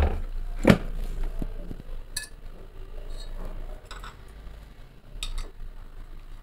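A few scattered sharp clinks and knocks of a utensil against a stainless steel pan holding freshly added sliced onions in hot mustard oil. The loudest clink comes just under a second in.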